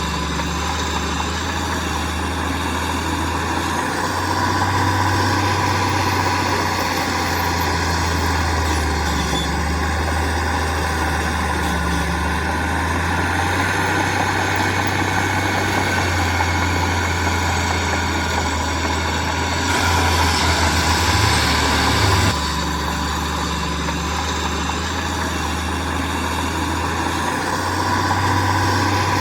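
Heavy diesel engine of earthmoving machinery running steadily, with its pitch shifting a little as the load changes and a louder, rougher stretch of about two and a half seconds about two-thirds of the way through.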